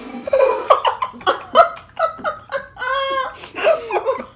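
People laughing in a quick string of short bursts.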